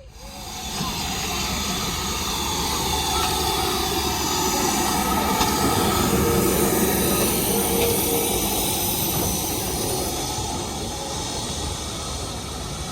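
Heritage steam train on the Swanage Railway running close by: a loud, steady rushing noise that starts suddenly, swells in the middle and eases a little near the end.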